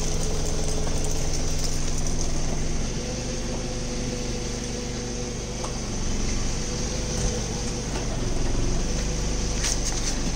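A car engine idling steadily close by.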